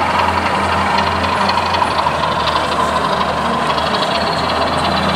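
Diesel engine sound from a DCC sound-fitted model locomotive, running steadily with a constant low hum.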